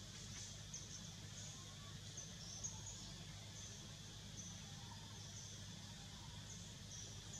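Faint forest ambience: short, high chirps from birds or insects come about once a second at irregular spacing, over a steady hiss and a low hum.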